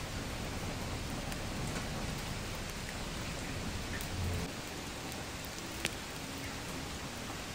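Steady rain falling at night, with scattered sharp ticks of single drops striking nearby surfaces; one drop hits louder a little before the end.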